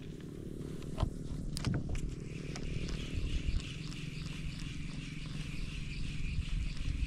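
Spinning reel being cranked to retrieve a lure: a few sharp clicks, then from about two seconds in a steady whirring with a fast regular ticking, over a steady low rumble.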